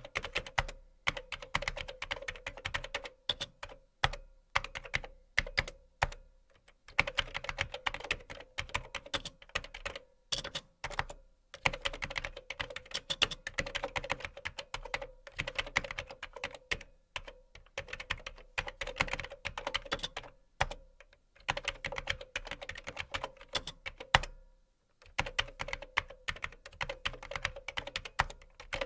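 Typing on a keyboard: fast runs of key clicks in bursts of a few seconds, broken by short pauses, over a faint steady hum.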